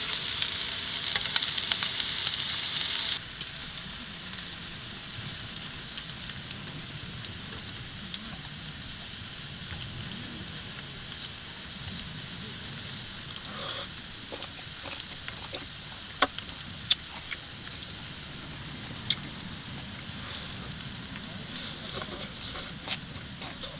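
Mushrooms sizzling in a hot pan. The sizzle is loud for about the first three seconds, then drops to a quieter, steady sizzle, with a few sharp ticks in the second half.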